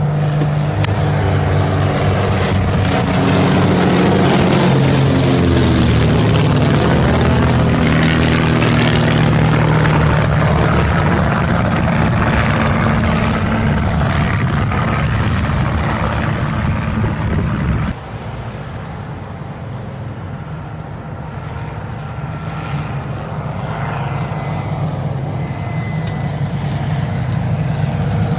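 SIAI-Marchetti SF.260 propeller aircraft flying past, a loud engine and propeller drone that drops in pitch as it goes by about five seconds in. About two-thirds through the sound cuts off abruptly to a quieter drone, which builds again as an aircraft approaches.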